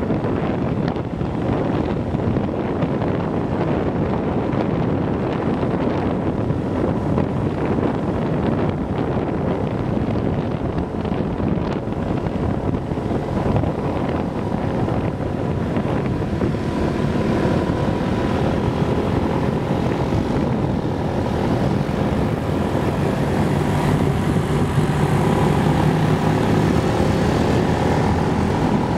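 Motorbike engine running under way on a hill climb, mixed with steady wind and road rush on the microphone; the engine's note grows stronger in the last few seconds.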